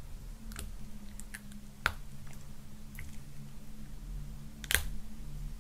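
Small plastic clicks and crackles as the tight plastic safety cover on a red balloon-popping needle is picked and pulled at, with two sharper clicks, about two seconds in and near the end.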